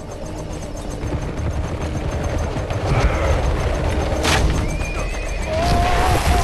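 Film battle sound effects of a galloping horse-drawn chariot: a heavy rumble of hooves and wheels that builds, with a sharp impact about four seconds in, then a horse whinnying near the end.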